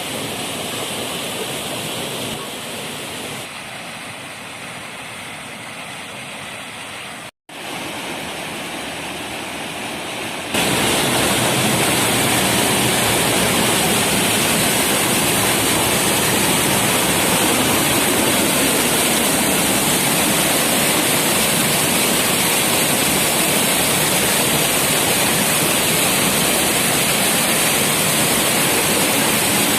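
Lešnički (Krivošijski) waterfall: water rushing in a steady, even roar, heard across several edited-together clips. There is a brief dropout about seven seconds in, and the sound is louder from about ten seconds in.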